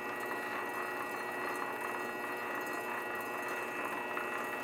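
Grizzly G0768 metal lathe running steadily, its motor and drive giving an even whine with a high tone, as it spins a stack of painted bottles.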